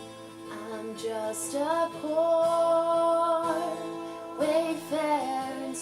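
Music: a slow folk song, with a voice holding long notes over acoustic guitar.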